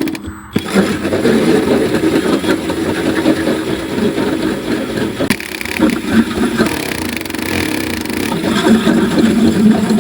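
Power drill running hard, boring a hole through the van's metal floor, with a short break just after the start.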